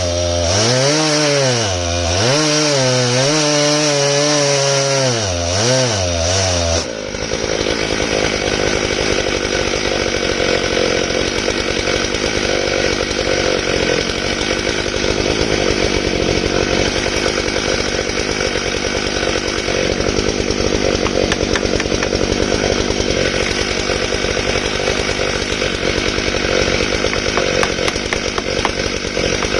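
Stihl MS661 two-stroke chainsaw on a chainsaw mill ripping through a large elm round. For the first seven seconds or so its pitch rises and falls; then the sound changes suddenly to a steady, rougher running as the chain cuts on.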